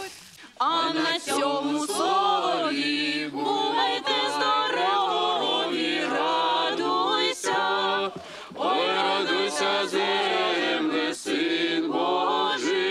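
A small mixed group of carolers, men's and women's voices together, singing a Christmas carol unaccompanied, in phrases broken by short pauses for breath.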